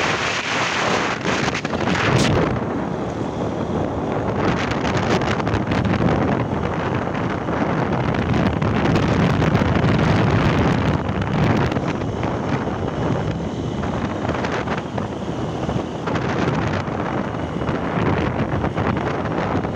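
Wind rushing over the microphone of a moving motorcycle, with the motorcycle's running and road noise mixed in underneath; steady throughout.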